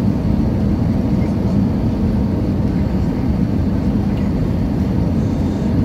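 Airliner cabin noise on final approach: engines and rushing air heard from inside the cabin as a steady low rumble.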